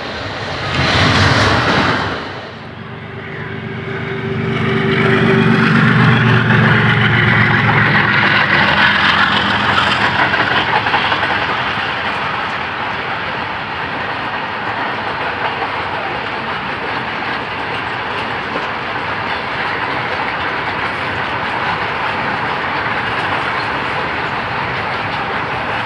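A light WDG6G diesel locomotive passing on the adjacent track in a short, loud rush about a second in. It is followed by a longer swell with a low steady drone from about four seconds, then the steady rumble and clatter of the train running at speed, heard from its open doorway.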